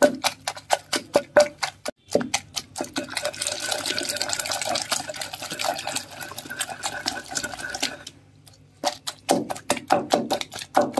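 Pestle pounding tomatoes and green chillies in a granite stone mortar, crushing them to a coarse paste: rapid strokes, several a second, crowding into a steady crushing run in the middle, with a brief pause about eight seconds in before the strokes resume.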